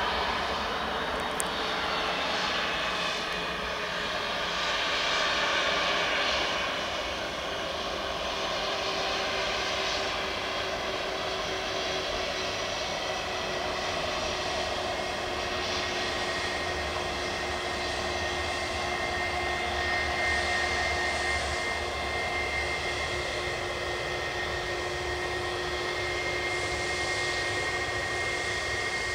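Airbus A320-232's IAE V2500 turbofan engines running at low, steady power as the airliner taxis, a steady jet whine over engine rush. A short click about a second and a half in.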